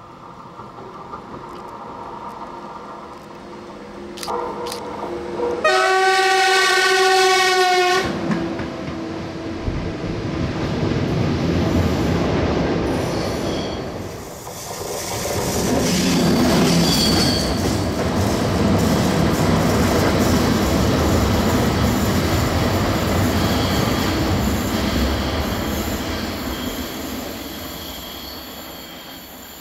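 A train comes closer and sounds its horn in one blast of about two seconds. It then passes in a long, loud rumble of wheels and cars that fades away near the end.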